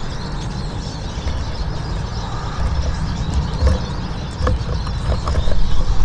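Small finches pecking and hopping on a wooden bird feeder, with scattered sharp clicks and taps and faint high chirps, over a steady low rumble.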